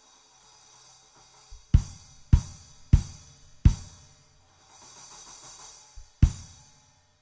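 Drum kit with Zultan Heritage cymbals: cymbal crashes landing together with bass drum hits, five strong accents between about two and six seconds in, the cymbals ringing on between them over a quieter shimmer. The sound cuts off just before the end.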